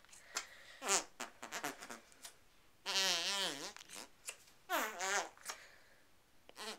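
Handheld Pooter fart-noise toy squeezed several times, giving short buzzy fart sounds. The longest, about three seconds in, lasts most of a second with a wobbling pitch, and another just before five seconds falls in pitch.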